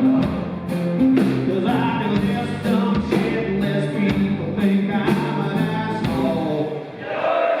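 Live country-rock band playing with a steady drum beat and bass line, with voices singing over it.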